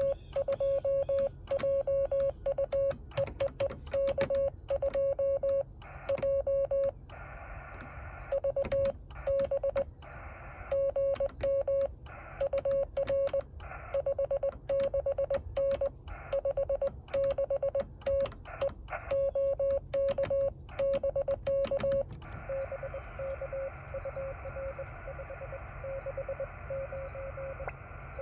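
Morse code from a Yaesu FT-817 transceiver: a steady, single-pitched CW tone keyed in dots and dashes, loud, with a click at each keying. It stops about 22 seconds in, leaving receiver hiss with a fainter, faster Morse signal keying near the end.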